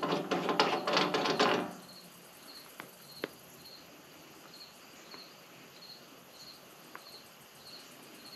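A hand ratchet clicking rapidly as a fitting is turned, stopping about a second and a half in. Then crickets chirping steadily, about two short chirps a second, with a few faint clicks of small parts being handled.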